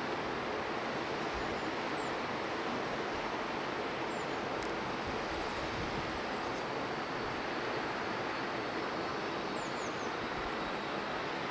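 Steady rushing of flowing river water, with a few faint, short, high bird chirps over it.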